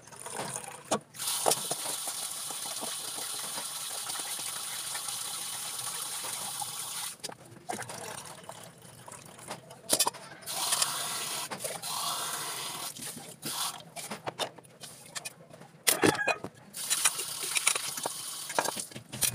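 Water running from a tap into a metal pot to wash rice, in three spells: a steady stream for several seconds, then two shorter, rougher ones, with the rinse water poured off and the pot knocking against the sink between them.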